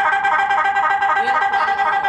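Music played from a phone through a modified police-siren module and its horn speaker.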